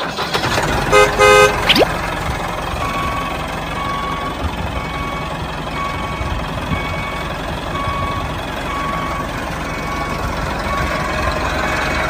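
Two short horn toots about a second in, then a tractor engine running steadily, with a short beep repeating about every half second.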